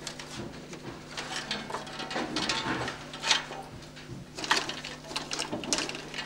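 35 mm cinema film projector running, its mechanism chattering over a steady low hum, with irregular louder clicks.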